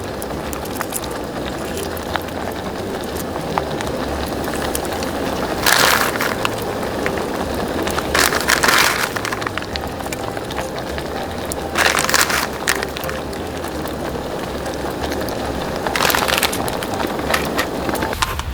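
Wood campfire crackling, with many small snaps over a steady hiss. Four short louder rushes of noise come through, near six, eight to nine, twelve and sixteen seconds in.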